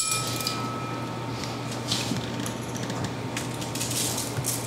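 The ringing of a lightly struck metal measuring spoon dies away over the first second and a half. Then come a few faint clicks and scrapes as kosher salt is scooped from its container, over a steady low hum.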